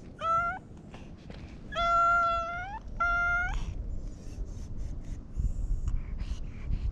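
Domestic tabby-and-white cat meowing three times, the middle meow the longest, each bending up in pitch at the end. Then short, soft sniffs and snuffles as it noses a finger.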